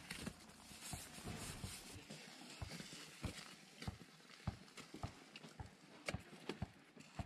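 Irregular light taps and clicks, a few a second, over a faint hiss.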